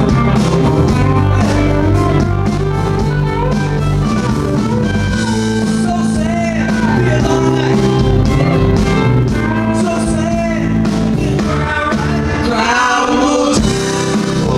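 Live rock band playing a slow blues-rock song, with a lead line of bent notes over bass and drums.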